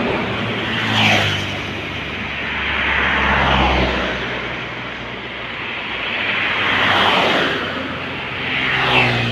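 A heavy tanker truck's diesel engine and tyres passing close by about a second in, then more road vehicles passing one after another, each swelling and fading.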